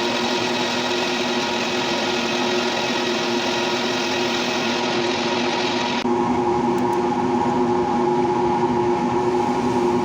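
Metal lathe running steadily, humming on several steady tones, while a cast-iron belt pulley is machined. A higher hiss over the hum cuts off suddenly about six seconds in, while the machine keeps running.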